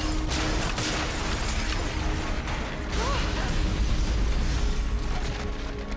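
Dramatic television sound effects: a steady low rumble under a rushing noise, with scattered cracks and creaks, and a brief rising-and-falling whistle about three seconds in.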